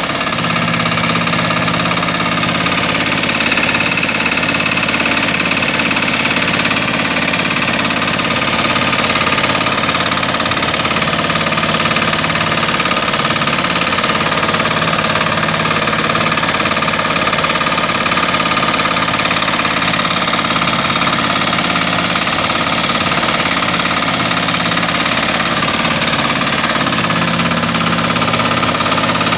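Shrachi mini power tiller's engine running steadily while towing a trolley, heard up close from the driver's seat.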